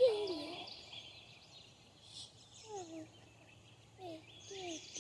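Chickens giving short, falling calls, a handful of times, with small birds chirping steadily in the background.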